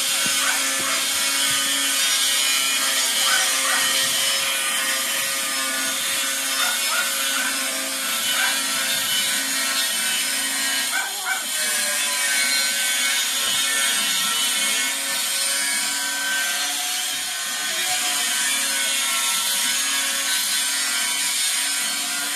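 Steady machine drone made of several stacked tones, running at an even level throughout, like a motor or power tool. A few short, high squeaks come on top of it during the first dozen seconds or so.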